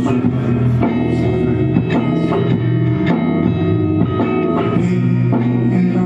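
Rock band playing live: electric guitar and bass over a drum kit, with a steady beat of drum hits.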